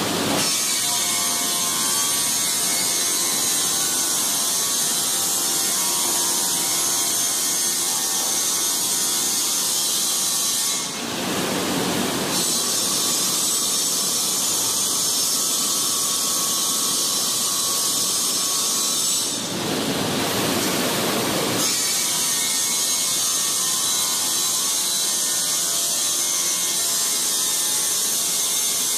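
Granite slab polishing machinery running steadily: a continuous loud machine noise with a strong high hiss and faint steady tones, changing briefly twice, about 11 and 20 seconds in.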